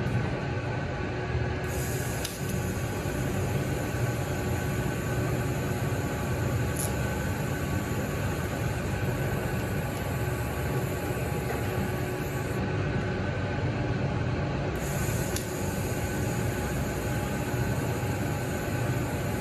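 TIG welding arc on a stainless 316L pipe-to-socket-weld coupling joint, hissing steadily. It burns in two runs, about eleven seconds and then about five, with a short break between: fusion tacks with no filler that pull the coupling square. A steady low hum runs underneath.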